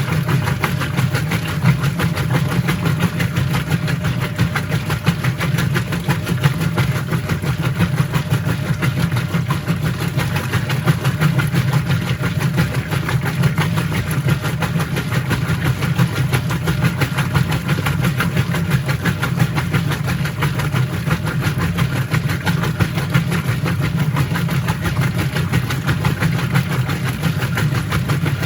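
Whirlpool top-load washing machine running with a steady, even mechanical hum that does not change.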